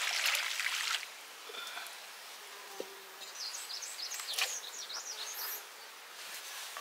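A short rush of pouring or splashing water through the first second, then a quiet stretch with a run of short, high, wavering chirps in the middle.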